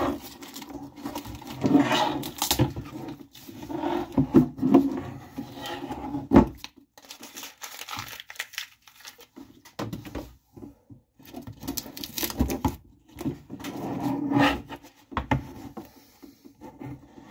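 Masking tape being peeled off a hard plastic RC Jeep body in short tearing pulls, with the crinkle of the loose used tape. There is a pause of a few seconds midway.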